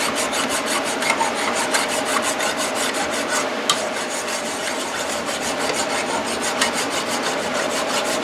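Flat metal file rasping across a metal part clamped in a vise, in quick, evenly repeated strokes.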